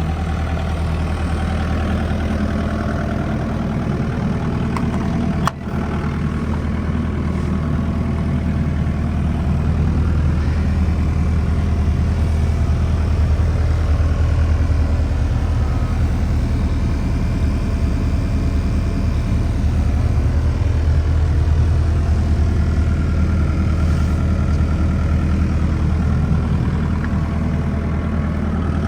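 2007 Bobcat 335 compact excavator's diesel engine running steadily at idle, with a brief break about five and a half seconds in.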